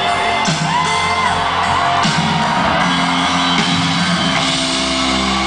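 Live rock band playing in an arena, recorded from the crowd: held chords with drum hits, and whoops from the audience over the music.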